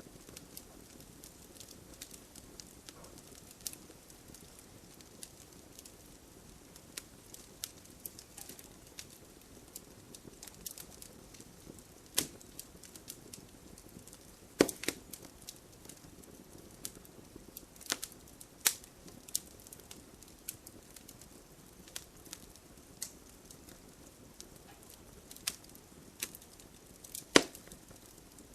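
Wood fire crackling in a fireplace: a low steady hiss under scattered sharp pops and snaps, a handful of them louder than the rest.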